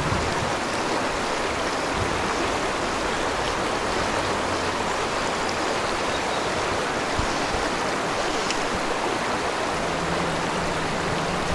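Creek water rushing steadily, an even unbroken wash of flowing water.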